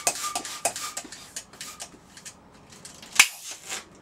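Hand balloon pump inflating a long clear twisting balloon: quick hissing strokes of air, several a second, thinning out after about two seconds. Then one sharp, loud sound about three seconds in.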